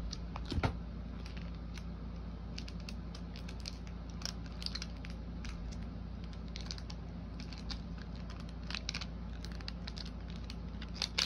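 Handling of a new phone's plastic packaging and protective film: scattered light clicks and rustles, with a louder knock about half a second in, over a steady low hum.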